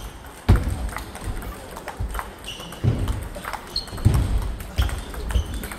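Table tennis ball clicking off bats and table in a rally: a string of sharp, irregular knocks about every half second to a second, echoing in a sports hall.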